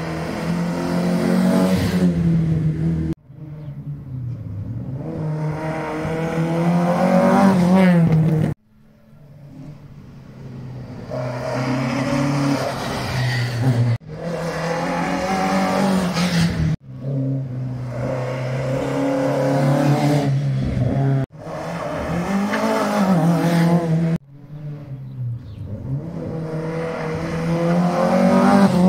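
Rally cars driven hard on a stage, one after another in short cut-together clips. In each clip the engine note climbs as the car accelerates, and the sound changes abruptly at each cut, every three to five seconds.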